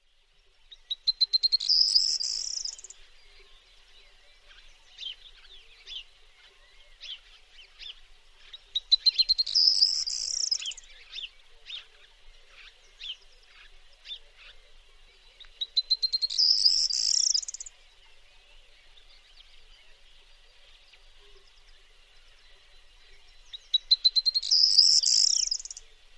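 Corn bunting singing its song four times, about every seven to eight seconds. Each song is a quickening run of ticks that swells into a brief, high, jangling rattle. Fainter short notes from other birds fall between the songs.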